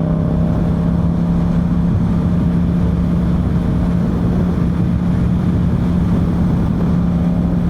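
Yamaha MT-07's 689 cc parallel-twin engine exhaling through an Akrapovic full exhaust system, on an untuned stock map, running at a steady engine speed while the bike cruises.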